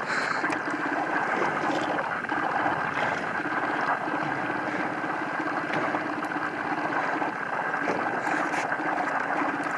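A boat engine running steadily at low speed, a constant hum, with water noise around the hull.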